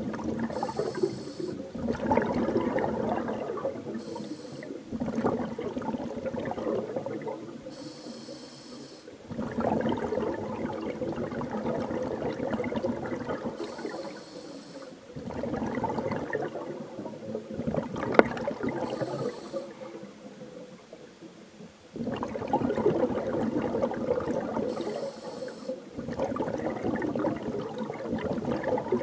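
Scuba diver breathing through a regulator, heard underwater. Each breath is a short, high hiss of the inhale, followed by a longer, louder gurgle of exhaled bubbles. The cycle repeats every few seconds, about six breaths in all.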